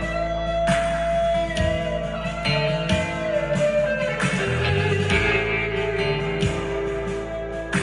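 Harley Benton SC-DLX electric guitar played through a Blackstar ID15 TVP amplifier: picked single notes and held notes, each new note struck about once a second.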